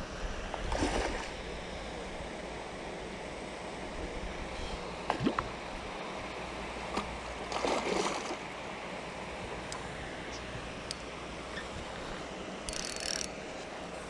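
Steady wind noise on the microphone over open lake water, broken by a few short rustles and knocks, the loudest about eight seconds in.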